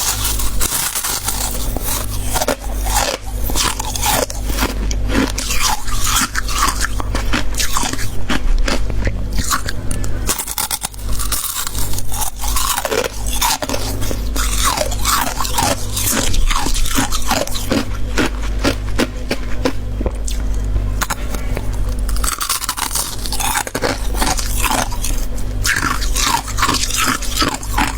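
Heavy freezer frost being scraped and bitten, a dense run of crisp crunching and scraping strokes with some chewing, over a steady low hum.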